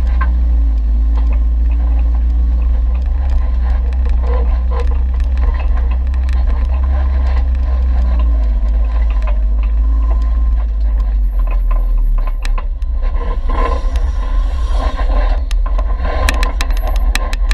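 An off-road vehicle crawling down a rocky dirt trail: a steady low rumble, with scattered clicks and knocks from gravel and rocks under the tyres.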